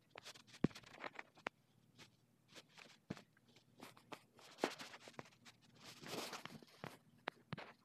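Faint, irregular clicks and short rustles of handling noise, picked up by the phone's microphone.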